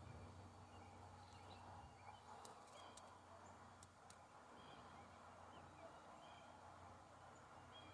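Near silence: faint outdoor background with scattered faint bird chirps and a few light clicks about three seconds in.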